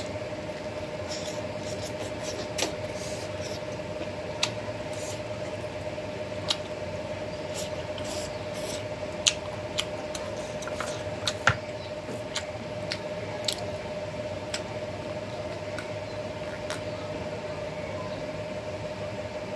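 Close-miked eating with the hands: chewing and wet mouth clicks, and fingers mixing rice on a steel plate, heard as scattered short, sharp clicks over a steady hum.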